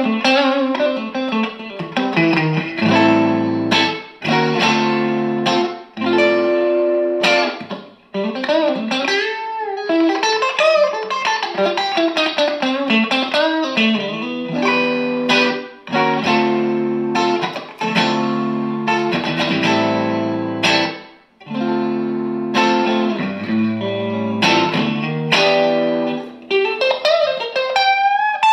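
Electric guitar, a Schecter Strategy, played through a Dynamo Flight Rig tube preamp on its clean/crunch channel: chords rung out for a second or two each, with a stretch of single-note lines that slide in pitch in the middle.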